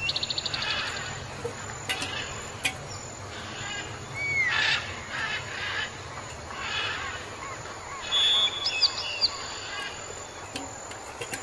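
Several birds calling and chirping: a quick rattling trill at the start, short downward-sliding whistles, and a burst of high piping notes a little past the middle. A few sharp clicks come in about two seconds in.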